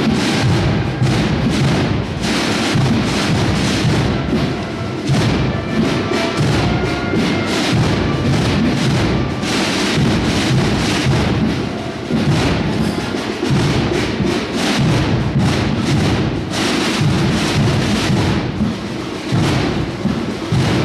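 Procession band's drums beating a march, loud and dense with heavy low strokes.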